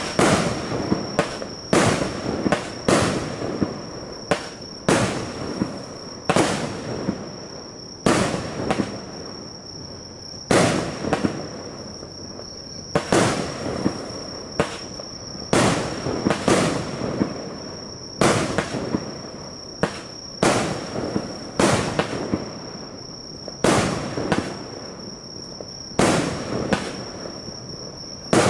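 Consumer fireworks battery (cake) firing brocade-tail comet shots one after another. There is a sharp report every one to two seconds, each with a short fading tail.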